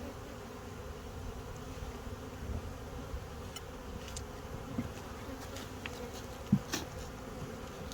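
Honeybees buzzing around an opened hive, a steady many-winged hum, with a couple of faint knocks or clicks a little over six seconds in.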